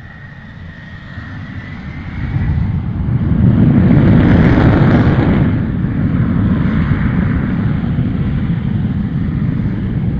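Vehicle noise, a dense rumble that grows louder over the first few seconds, peaks around the middle, then holds steady and cuts off suddenly at the end.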